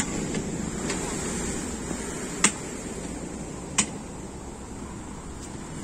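Two sharp metallic clinks, about a second and a half apart, from a Turkish ice cream vendor's long metal paddle knocking against the metal tubs and lids of the dondurma cart, over a steady background hush.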